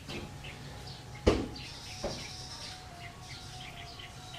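Small birds chirping in the background, with one sharp knock about a second in and a fainter one a second later as hands fit a hose and cables on the motorcycle engine.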